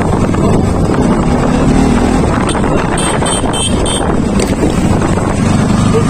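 Wind buffeting the microphone over the steady low rumble of a motorcycle on the move. A little after three seconds in, four short high beeps come in quick succession.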